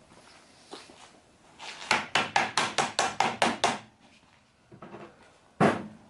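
A quick, even run of about nine sharp clicks or taps, then a single louder knock near the end, as retractable screen housing parts are worked by hand.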